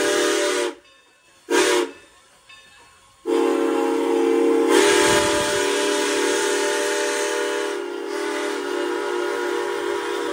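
Steam whistle of locomotive No. 475 blowing as the train departs: a blast cuts off just under a second in, a short toot follows about a second and a half in, then a long steady blast starts about three seconds in.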